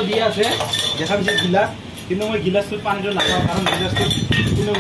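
Metal chain and chained steel drinking tumbler clinking and rattling against the stainless-steel grille and taps of a public drinking-water dispenser as the chain is handled, in many short sharp clinks.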